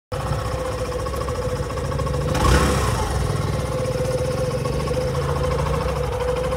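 Hero Passion Pro BS6's single-cylinder engine idling steadily, with one brief louder surge about two and a half seconds in. The idle is no longer racing, now that the throttle cable has free play.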